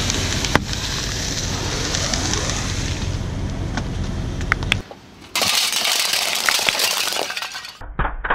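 Car tyre rolling over green floral-foam blocks and crushing them, a steady crackling crunch with a few sharp snaps. It drops away briefly about five seconds in, the crunching resumes, and a few sharp cracks come near the end.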